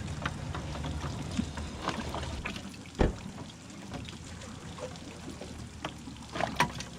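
Water trickling and splashing, with scattered small clicks and knocks on a fishing boat. A sharp thump comes about three seconds in and another cluster of knocks near the end. A low steady hum stops just before the thump.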